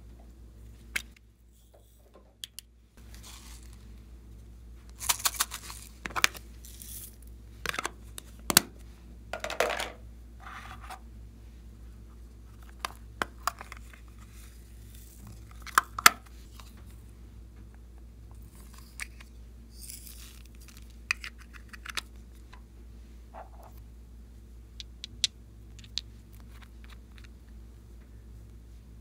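Slime being mixed and worked by hand: irregular sticky clicks, pops and crackles, some coming in quick clusters, over a faint steady hum.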